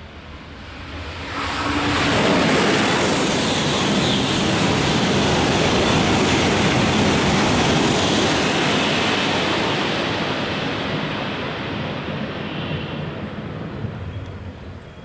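Shinkansen train (E3-series Tsubasa coupled to an E2-series Yamabiko) passing through a station at about 274 km/h without stopping. A loud rush of air and rail noise swells about two seconds in, holds steady, and dies away over the last few seconds.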